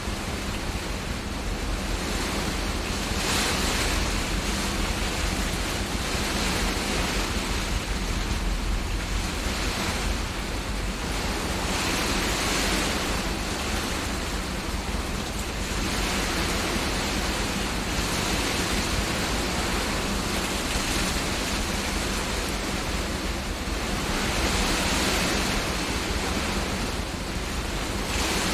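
Heavy rain with hail pelting down in strong wind, a dense steady hiss that swells in gusts every few seconds.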